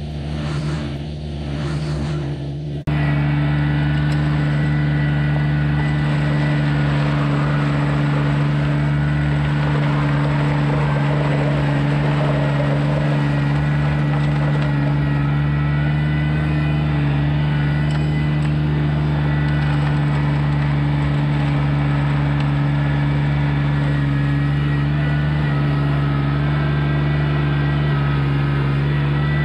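John Deere 755 compact tractor's three-cylinder diesel engine running under load while the tractor works the road with a rear implement. For the first few seconds the sound pulses; about three seconds in it changes abruptly to a louder, steady drone.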